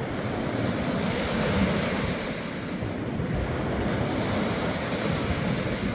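Small waves washing and breaking on the shore in a steady wash, with wind rumbling on the microphone.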